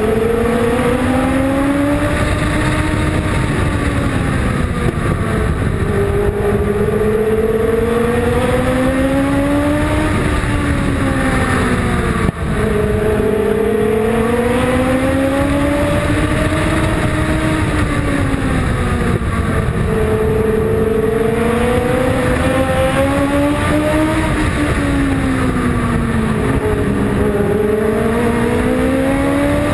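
Race car engine heard from on board, under load the whole time, its revs climbing along each straight and dropping into each turn in a repeating cycle about every seven seconds as the car laps a short oval. A brief click about twelve seconds in.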